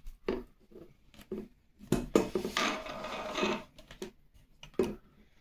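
Handling noise of string being threaded through an aluminium box-tube slide: scattered light clicks and taps, with a stretch of rustling and scraping from about two seconds in that ends about a second and a half later.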